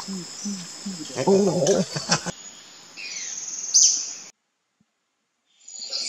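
Forest insects keep up a steady high-pitched buzz, with low voices talking for the first two seconds. About three seconds in, a bird gives a few quick descending whistled calls, then the sound cuts out to silence.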